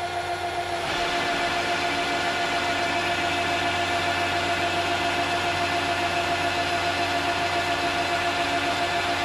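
Metal lathe running under power with a steady motor and gear whine. About a second in, a louder, even hiss joins and holds, typical of the tool taking a cut on the turning metal.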